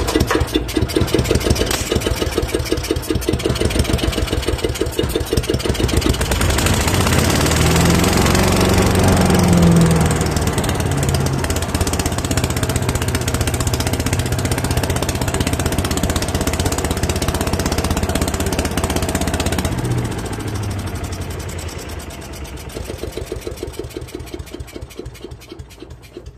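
Briggs & Stratton single-cylinder four-stroke engine, pull-started with its recoil cord, catches at once and runs on a freshly cleaned carburetor. Its pitch rises and falls briefly about eight to ten seconds in, then it runs steadily. Over the last few seconds it slows and quiets, its firing pulses spreading apart.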